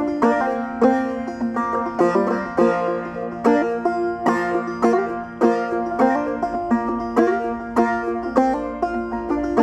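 Banjo playing an instrumental break: a steady stream of plucked notes over a held low note.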